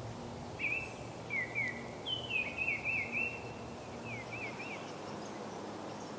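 A songbird singing a run of short, quick slurred whistled notes in several varied phrases, stopping a little before the end, over a steady low outdoor background noise.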